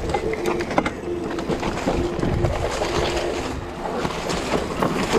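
Mountain bike rattling and knocking over a rocky trail, with wind and tyre noise. A steady low tone runs alongside and fades out about three and a half seconds in.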